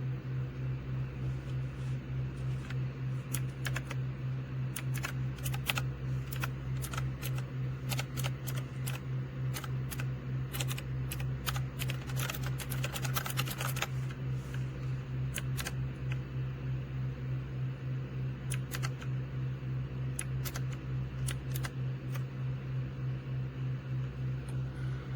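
Keys clacking on a typewriter-style mechanical keyboard: scattered single keystrokes with a fast flurry of typing about halfway through. A steady low hum runs under it and is louder than the keys.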